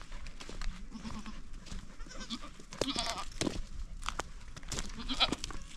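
Goats bleating, a few short calls, the clearest about three and five seconds in.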